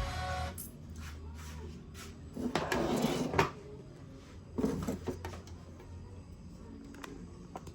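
Clatter and knocks of kitchenware being handled at a coffee setup: a rattling clatter about two and a half seconds in that ends in a sharp knock, another short clatter and knock about a second later, and a few light clicks.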